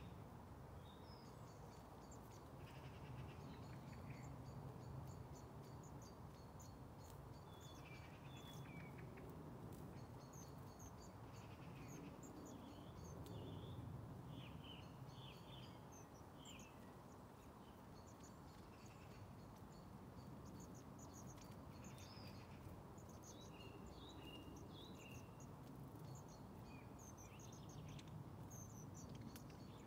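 A roosting flock of long-tailed tits giving frequent short, high, thin calls, faint over a steady low background rumble.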